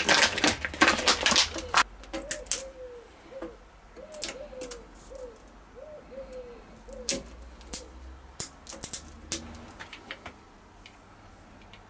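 A bird cooing in a run of short, slightly falling notes, after a clatter of quick clicks and knocks in the first two seconds. Scattered clicks and a low steady hum run underneath.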